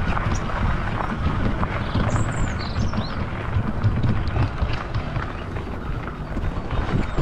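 Fat tyres of an electric mountain bike crunching and rattling over a loose gravel track while climbing, with wind rumbling on the microphone. A bird chirps briefly about two seconds in.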